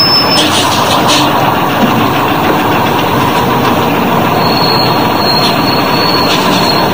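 A bus engine running steadily, laid over the toy bus play as a sound effect.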